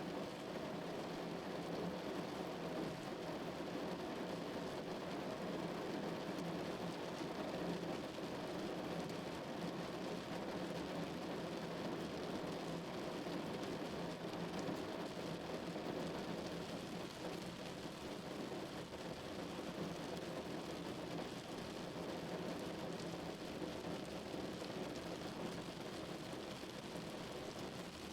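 Steady rain falling on a car's body, an even, continuous patter of drops.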